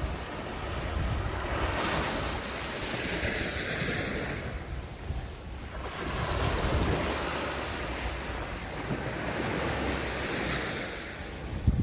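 Sea waves washing onto the shore, two swells of surf rising and falling about five seconds apart, with wind rumbling on the microphone.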